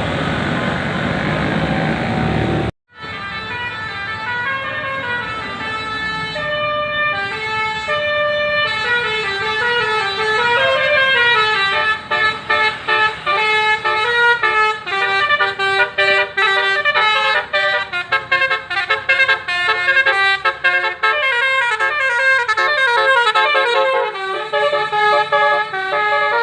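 A bus's multi-tone 'basuri' telolet horn playing a tune of stepped notes, held notes at first and then quicker runs of notes from about halfway through. Before it starts there are a few seconds of dense road and engine noise, which cut off abruptly.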